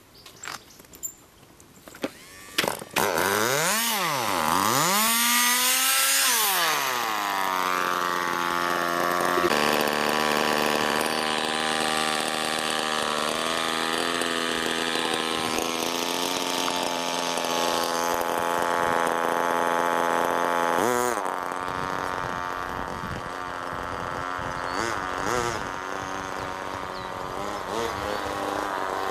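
Irvine 20 two-stroke glow model engine in a vintage RC buggy catching about three seconds in after a few clicks, revving hard up and down, then settling into a steady high-pitched buzzing run. It drops and gets quieter at about 21 seconds, with a few small blips of the throttle after that.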